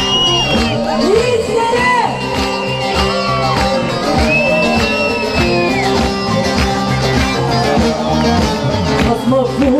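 Music: an instrumental passage of a song, a melody with sliding, held notes over a steady beat.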